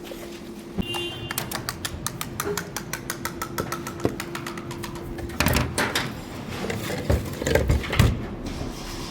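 Rapid, evenly spaced mechanical clicking, about ten clicks a second over a steady hum, which stops about five seconds in. Irregular knocks and clatter of metal parts being handled follow.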